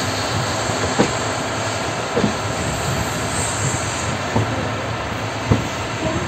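Passenger train running, heard from on board: a steady rumble and hiss of wheels on the rails, broken by a few sharp clanks at irregular intervals as the wheels pass over rail joints.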